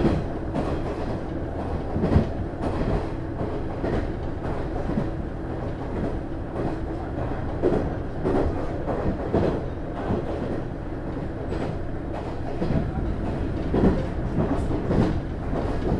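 Running noise heard from inside a KiHa 110 series diesel railcar (JR East KiHa 110-135, DMF14HZA diesel engine) moving at speed. A steady low engine drone runs under the wheels knocking over rail joints at irregular intervals.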